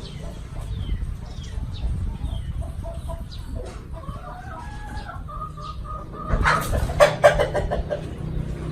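A rooster crowing once, a long call that rises and then holds its last note, about halfway through. It is followed by a short cluster of loud, harsh sounds, over a low background rumble.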